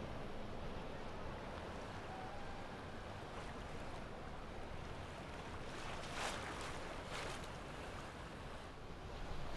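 Large motor yacht passing under way: its engines rumble under a steady rush of churning wake water, with a brief louder hiss about six to seven seconds in.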